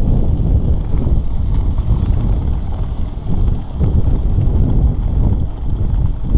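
Wind buffeting the microphone of a handlebar-mounted camera on a bicycle moving along a gravel road: a loud, low rumble that swells and dips in gusts, with brief lulls about three seconds in and again near the end.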